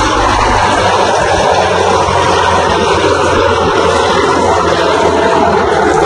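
New Holland 3630 tractor's three-cylinder diesel engine running steadily under heavy load while pulling a plough deep through the soil.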